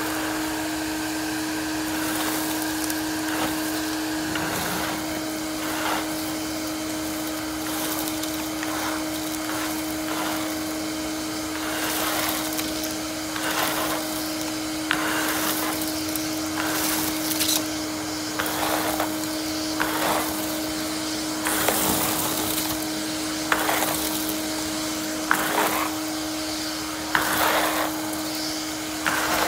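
Ridgid NXT wet/dry shop vac running steadily with a constant motor whine. Short, scratchy rushes come through as leaves are sucked up the hose, more often in the second half.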